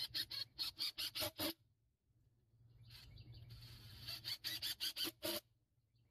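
Cordless impact driver driving screws into pine boards in two bursts, each about a second and a half long and ending in a quick run of sharp clicks.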